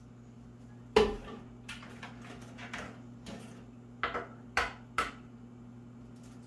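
Eggs being cracked and separated over a ceramic cup: a series of sharp taps and knocks of eggshell and crockery. The loudest comes about a second in and three more follow close together later on, over a steady low hum.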